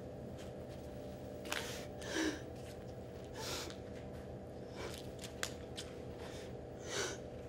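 A woman crying: a few short sobbing, sniffling breaths over a faint steady hum.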